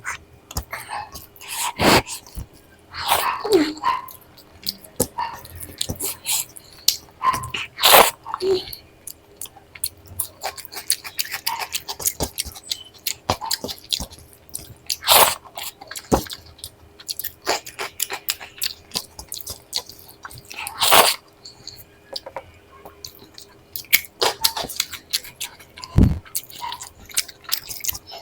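Close-miked mouth eating sounds: steady chewing and smacking, broken by several louder crisp crunches from fried snacks such as papad and Takatak.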